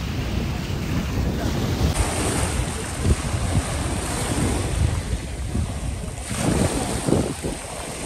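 Small sea waves washing over a pebble shore, with wind buffeting the microphone in uneven gusts.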